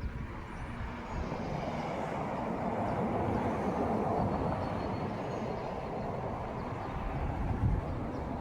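A vehicle passing on a nearby road: tyre and engine noise that swells to its loudest about four seconds in and then eases off, over a low rumble.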